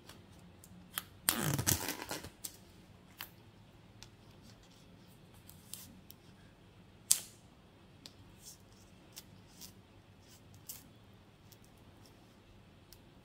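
Plastic shrink wrap on a watch box being slit with a folding knife and pulled away: crinkling and tearing of the film, a loud crackling burst about a second and a half in, then scattered small crackles and one sharp click about midway.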